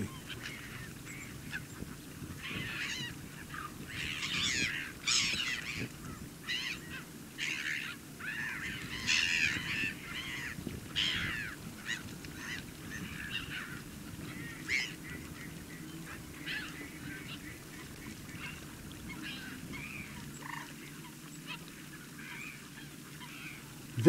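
Wild wetland birds calling: many short calls overlapping, thickest in the first two-thirds and thinning out toward the end.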